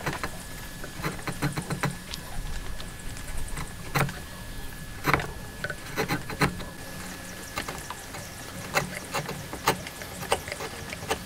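Wood chisel pushed by hand, paring the inside of a mortise: irregular short scraping cuts and sharp clicks as shavings break away, a few of them louder cracks. A faint steady high tone runs underneath.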